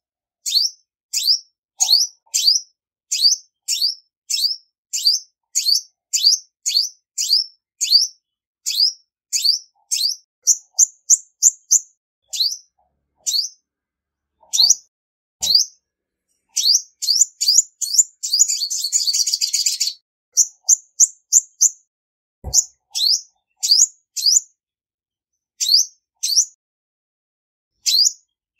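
Female olive-backed sunbird calling: a long series of sharp, high chips at about two a second. Partway through come quicker runs of chips and a short buzzy trill.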